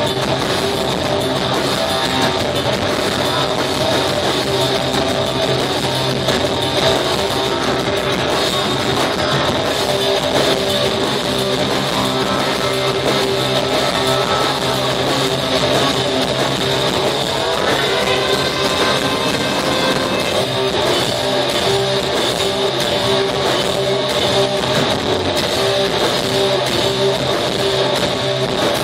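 A live rock band playing loud, with electric guitars and a drum kit, heard from the crowd.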